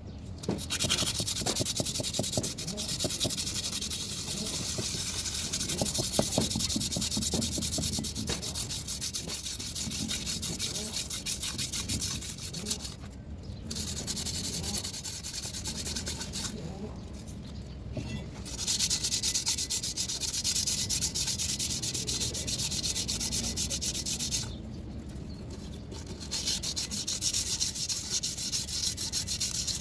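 Steady abrasive rubbing or sanding on metal parts of a truck steering box during its rebuild. It goes in long stretches, broken by a few short pauses.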